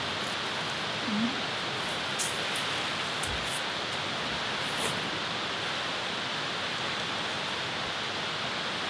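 Steady hiss of background noise with a few faint rustles and snaps of evergreen branches being handled, mostly in the first half.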